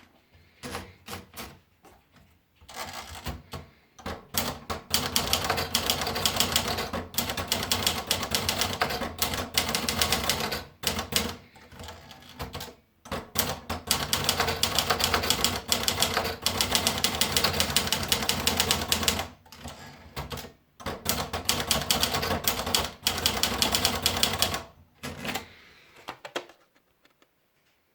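Olivetti Lettera 25 manual portable typewriter being typed on: fast runs of key strikes in three long stretches with short pauses between them, and a few single strikes at the start and near the end.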